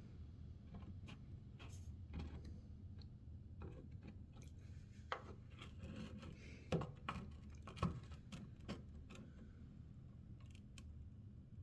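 Scattered light clicks and taps from tools working on a plastic motorcycle fairing, with a few louder knocks in the middle, over a steady low hum.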